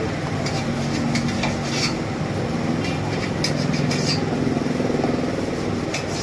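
A large knife slicing burger buns on a steel counter, with scattered light clicks of the blade against the metal, over a steady low hum.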